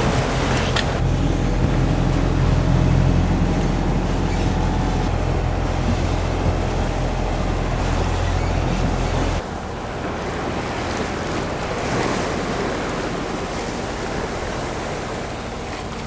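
Wind and sea rushing past a sailing yacht on the open ocean. A heavy low rumble of wind on the microphone fills the first nine seconds or so, then drops off abruptly to a lighter, steady rush of waves and wind.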